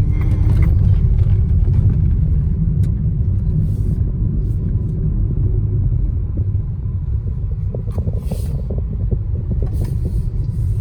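Car driving along a road, heard from inside the cabin: a steady low rumble of engine and tyres, with a few light rattles and knocks in the second half.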